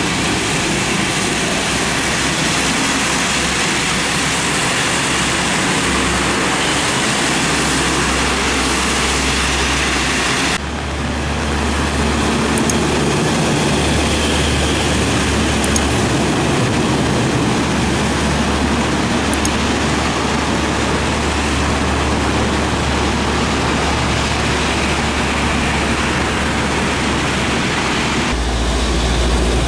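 Heavy diesel trucks driving past on a rain-soaked road: a low engine sound under a steady hiss of rain and tyre spray. The sound changes abruptly about ten seconds in and again near the end.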